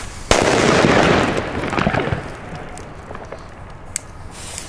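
Firework going off on the ground: a sudden loud burst, then about two seconds of dense crackling rush that fades away. A couple of single sharp cracks follow near the end.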